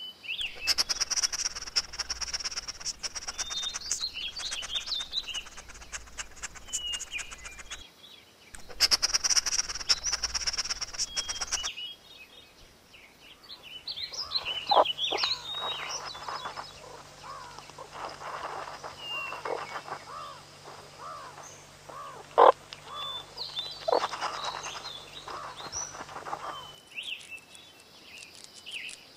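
Crackly outdoor rustling with small birds chirping behind it, broken by a brief gap. About twelve seconds in, a run of short chirping calls from meerkats starts, each call bending up and down, with one sharp louder call among them; the calls stop near the end.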